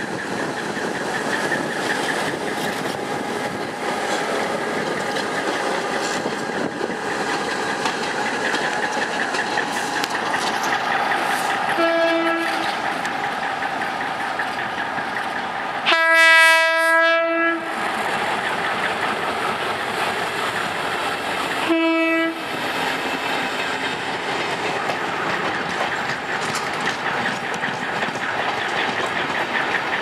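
G22 diesel locomotive running and rolling over the rails, a steady mechanical din. A locomotive horn sounds three times on one note: a short blast about twelve seconds in, a longer, louder blast of about a second and a half around sixteen seconds, and another short one around twenty-two seconds.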